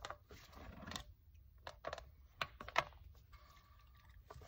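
Faint, irregular clicks and taps from a handheld fluid evacuator and its plastic hose while it sucks spilled coolant and oil out of the engine valley, with a faint thin steady tone for about a second near the end.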